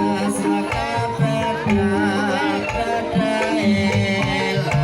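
Javanese gamelan music accompanying an ebeg dance: held metallophone notes over hand-drum (kendang) strokes, with a voice singing along.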